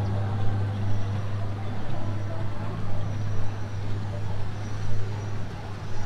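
Tour boat's motor running with a steady low hum as the boat cruises along the river.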